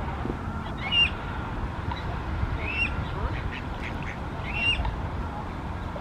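Young coot calling: three short, high, thin calls about two seconds apart, each rising and then levelling off. A steady low rumble runs underneath.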